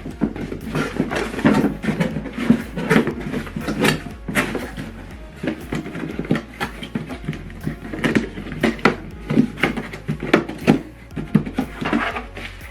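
Handling noise: irregular clicks, knocks and rustles as the soundbar and its packaging are moved about and set down.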